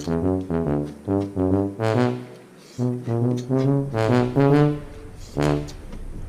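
Background music: a brass-like melody of short, detached notes over a bass line, in a steady rhythm.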